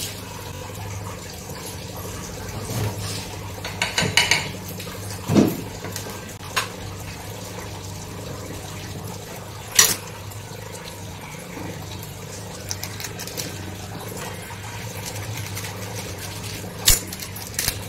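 Bread toasting in ghee on a flat iron tawa over a low gas flame, sizzling faintly, with a steady low hum beneath. Over it come scattered kitchen clinks and clicks: a knife against a small container, and a few sharp snips, the sharpest near the middle and another near the end.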